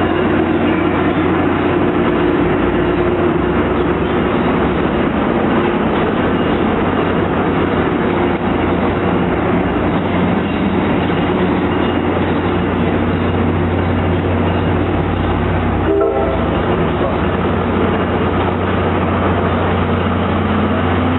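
Tri-Rail commuter train running at speed, with a steady loud rumble of wheels and engine and a constant low hum, heard from aboard.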